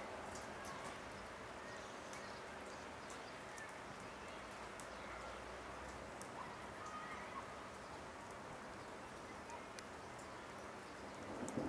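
Faint outdoor ambience: a steady hiss with scattered faint ticks and a few brief, faint chirps. It grows louder right at the end.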